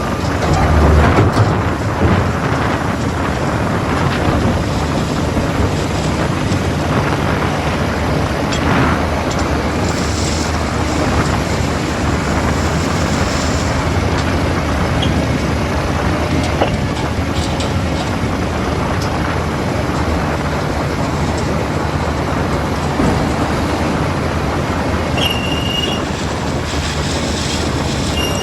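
JCB 3DX backhoe loader's diesel engine running steadily while it works, with a few knocks early on and a brief high-pitched squeal near the end.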